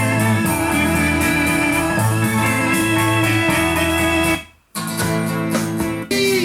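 Guitar-led music playing, which breaks off for a moment about four and a half seconds in and then resumes.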